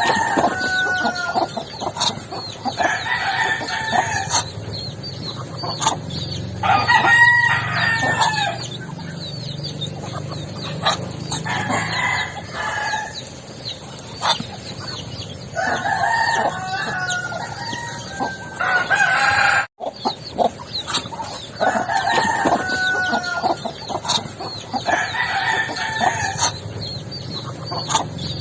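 Roosters crowing again and again, one drawn-out crow every three to four seconds, over continual clucking and cheeping from a flock of chickens. The sound drops out for an instant about two-thirds of the way through.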